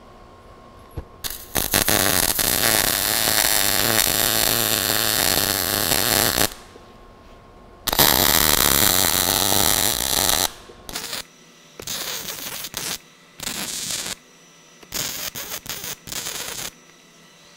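MIG welding arc on steel plate: two continuous welds of about five and two and a half seconds, then several short bursts as reinforcement tacks are laid at the corners.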